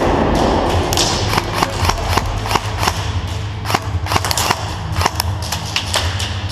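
Airsoft guns firing: a string of sharp, irregular snapping shots, heavier in the first second. Under them runs a bass-heavy electronic music track.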